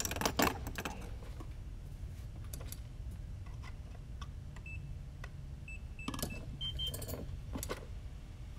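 Clicks and small rattles of hands handling an FPV drone and its parts on a workbench, loudest at the start and again near the end. A few faint short high beeps sound in between.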